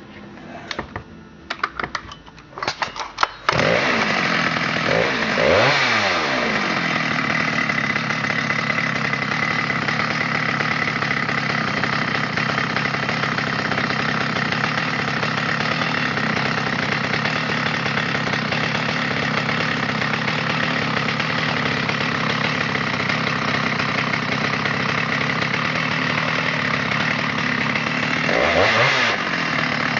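Stihl 084 Magnum chainsaw's 121 cc two-stroke engine sputtering in several short bursts, then catching about three and a half seconds in and running loud and steady at high revs. Its pitch rises and falls briefly early on and again near the end, and it cuts off just before the end.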